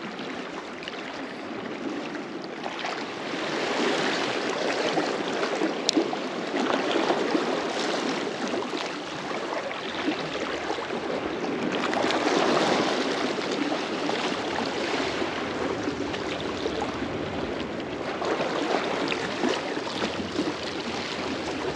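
Small sea waves lapping and washing against shoreline rocks, swelling and easing every few seconds.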